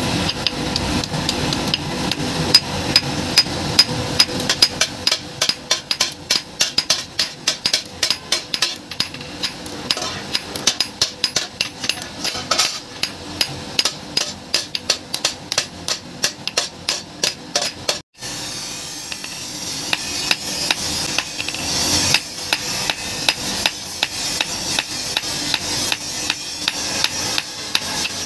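Hand hammer forging a red-hot steel knife blade on a steel anvil block: rapid, regular blows, about two to three a second, each with a short metallic ring. The blows stop for an instant about eighteen seconds in, then carry on.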